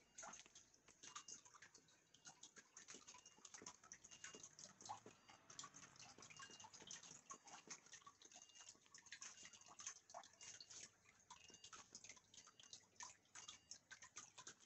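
Near silence with faint, irregular clicking and crackling throughout, and a soft short beep repeating about once a second.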